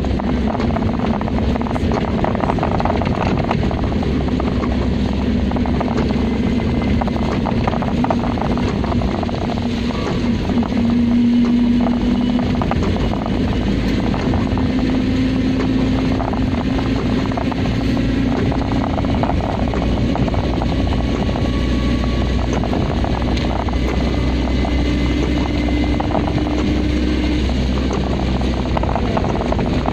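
Car engine and road noise heard from inside the moving car on a wet road, a steady hum whose pitch creeps slowly upward as it goes.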